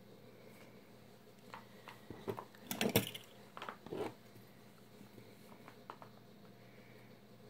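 Fingers handling small bent-wire earring pieces: soft scattered clicks and rubbing, with a louder cluster of taps and rubs about three seconds in.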